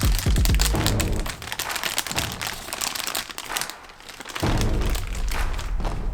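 Background music with many sharp crackles and crinkles over it, typical of plastic packaging being handled and torn open while a boxed figure is unpacked.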